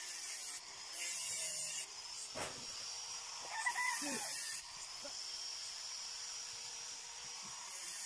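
A knife shaving thin bamboo strips, scraping in strokes about a second long, three of them, with a sharp knock between the first two. A short animal call sounds about three and a half seconds in.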